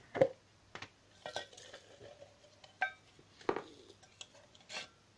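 A small metal tin being handled and opened: a string of knocks and clinks, the loudest just after the start, two of them ringing briefly.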